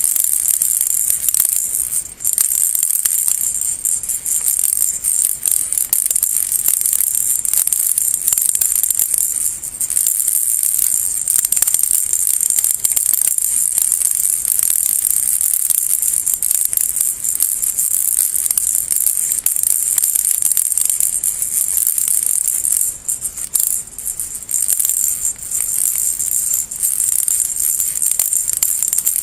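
Baby rattle shaken continuously, a bright, high-pitched rattling that keeps going with only a couple of brief lulls.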